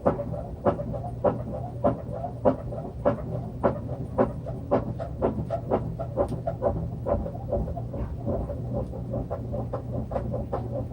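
Samsung washing machine running with a failed drum bearing assembly: a steady low hum with a knock repeating roughly every half second as the drum turns, the sign of a bad bearing.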